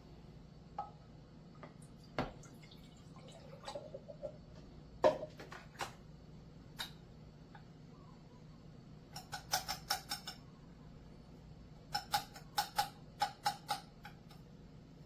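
Light clinks and knocks of small kitchenware being handled, then two quick runs of rapid clinking with a short ringing note, about nine and twelve seconds in.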